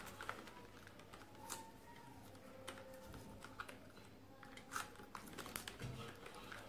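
Scattered light clicks and taps of a screwdriver and fingers working on a plastic electrical junction box and its conduit fittings.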